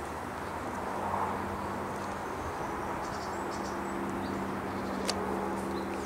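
Outdoor woodland ambience: a steady low hum and hiss, with a few faint short high chirps of small birds in the middle and one sharp click about five seconds in.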